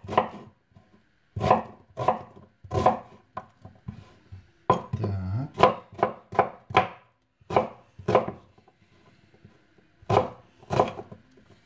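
A kitchen knife dicing an onion on a wooden cutting board: irregular knocks of the blade on the board in small groups with pauses, plus a brief drawn-out sound about five seconds in.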